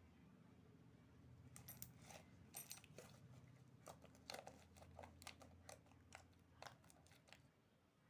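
Slime being handled by hand, giving a run of sharp crackles and pops from about a second and a half in until near the end.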